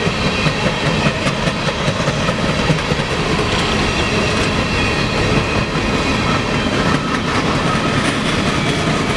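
Empty coal hopper cars of a freight train rolling past, a steady loud clatter and rattle of wheels and car bodies with a dense run of knocks.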